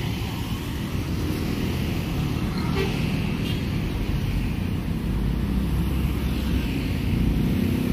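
Busy road traffic passing close by: the steady rumble of a city bus, motorcycles and cars driving past.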